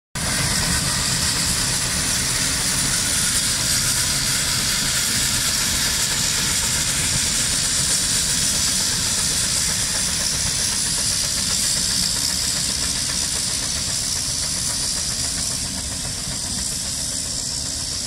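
Steam traction engines working under a heavy haulage load: a steady, loud hiss of steam over a low rumble, easing slightly near the end.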